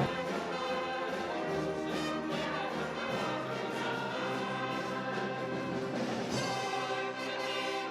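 An orchestra with brass to the fore, trumpets and trombones playing held chords.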